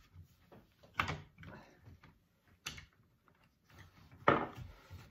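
Clicks and knocks from the plastic housing of a DeWalt cordless jigsaw being handled and pressed together while its trigger is fitted back into place: three sharp knocks about a second and a half apart, the last the loudest, with light scraping between.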